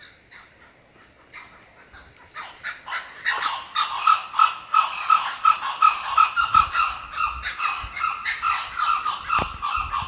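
Kookaburra calling: a rapid run of cackling, laugh-like notes that starts faint and becomes loud about three seconds in, carrying on through the rest.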